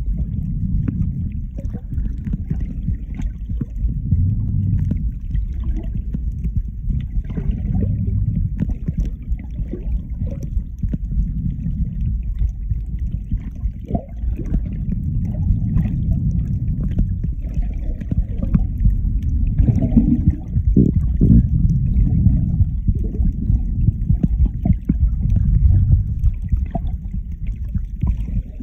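Muffled underwater noise on a phone's microphone: a steady low rumble of moving water that swells and fades every few seconds, with faint scattered clicks and crackles and a couple of sharper knocks about twenty seconds in.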